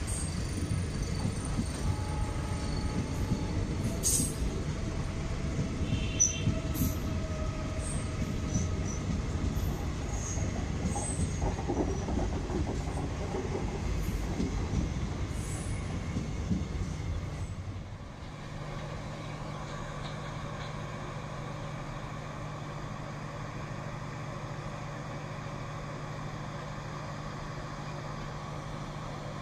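Passenger coaches rolling past at speed: a heavy wheel-and-rail rumble with thin wheel squeals and occasional clicks over rail joints. About eighteen seconds in it cuts off suddenly to a steady low hum of an idling diesel locomotive.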